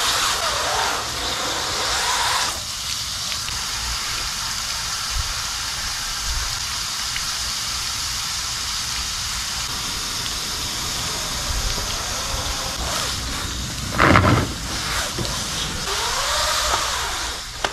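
Brushes scrubbing a wet, soapy window screen's mesh with a steady hiss, scratchier at the start, with one louder knock about fourteen seconds in and squeaky rubbing near the end.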